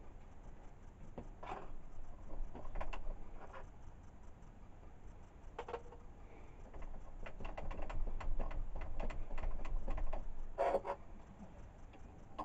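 Light clicks and knocks at an irregular pace over a low rumble, with louder knocks about a second and a half in, near six seconds and near eleven seconds.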